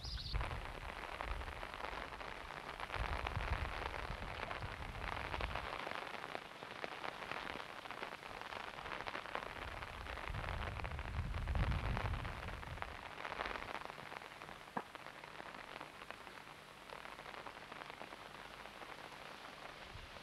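Steady rain pattering, with low rumbles on the microphone swelling up a few times.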